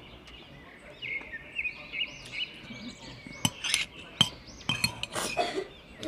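A metal spoon and fork clinking against a glass dish, a few sharp clinks in the second half, while small songbirds sing repeated chirps and trills from about a second in.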